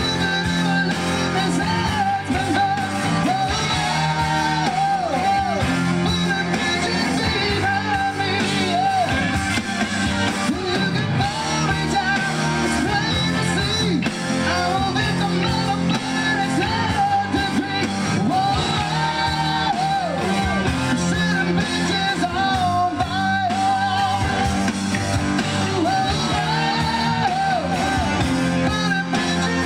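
Rock band playing live at a steady full level: electric guitars, keyboards and drums, with a lead voice singing over them.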